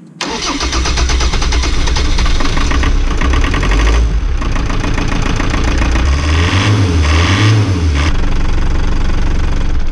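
Volvo Penta TMD22 four-cylinder marine diesel (a Perkins Prima) running with a loud, rapid diesel knock, test-run right after its leaking number-3 injector was cleaned and refitted. The sound comes in abruptly just after the start, and the engine speed rises and falls twice between about six and eight seconds in.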